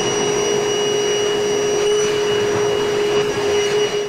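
Vacuum motor running steadily with a high whine, pulling suction through the dryer vent line as it is cleaned; it starts to cut off right at the end.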